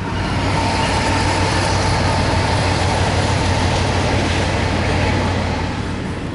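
CSX intermodal freight train passing close by: a steady diesel engine drone under the rushing noise of wheels on rail. It swells in the first second, holds, and eases off near the end.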